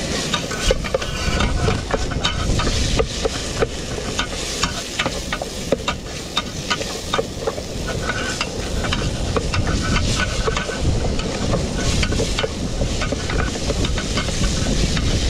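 Wooden spatula stirring onions and tomatoes sautéing in a camping pot, with frequent quick scrapes and knocks against the pot over a steady sizzle.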